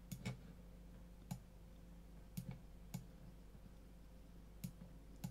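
Computer mouse button clicks: about eight short, sharp clicks at uneven intervals, a few of them in quick pairs.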